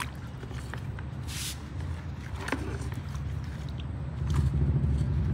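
Low rumble with water swishing in a plastic bucket as a hand holds a hose down in it, a few light clicks and one short splash about a second in. The rumble grows louder near the end.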